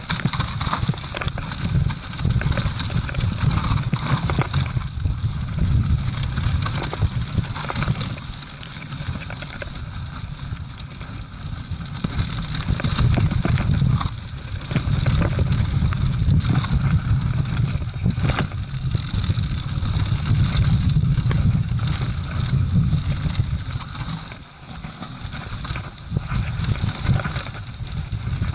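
Mountain bike descending a dusty dirt trail: tyres running over loose dirt and dry leaves, with the bike's chain and frame rattling and clicking over bumps. Wind rumbles on the microphone, swelling and easing with speed.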